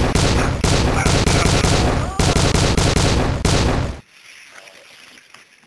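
Rapid machine-gun-style gunfire, very loud, with a brief break about two seconds in. It stops abruptly about four seconds in.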